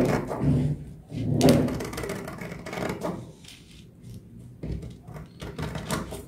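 Scissors cutting through a paper sewing pattern: blades crunching and scraping through the paper, with paper rustling and rubbing on the table, then a run of short sharp snips near the end.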